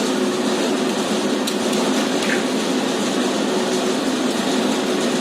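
A steady mechanical hum with a constant low tone over an even rushing noise, with a faint knock or two.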